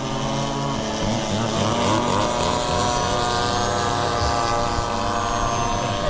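Radio-controlled model aircraft engine running, its pitch wavering up and down for the first few seconds, then holding steady.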